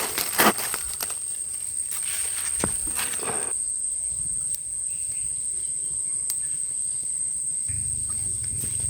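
A steady, high-pitched insect trill, with a few sharp clicks and knocks in the first three seconds or so.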